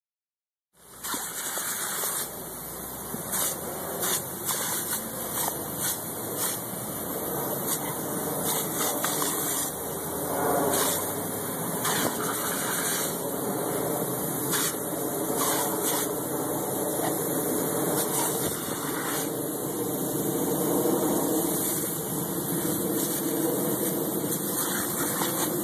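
Lawn sprinkler jet hissing steadily, starting about a second in, with many short sharp splashes as a dog bites and lunges at the spray.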